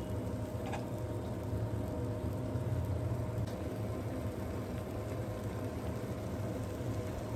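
A pan of water boiling on a gas hob, with noodles cooking in it: a steady low rumble of the burner flame under the bubbling water. There are a couple of faint ticks, about a second in and again a few seconds later.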